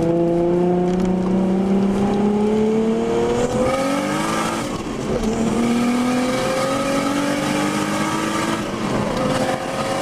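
Single-turbo RB26DET straight-six of an R32 Skyline GT-R accelerating hard through the gears, its pitch rising steadily and dropping at a gear change about four seconds in and again near the end.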